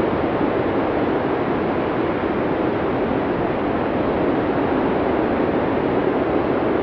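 Blizzard wind blowing hard and steadily, a dense low rushing noise without gusts or breaks.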